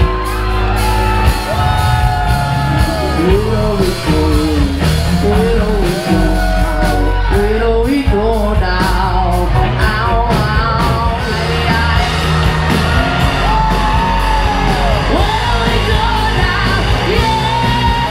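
Live band playing loudly in a packed bar: a male singer with electric guitar, heavy bass and drums, with yells from the crowd.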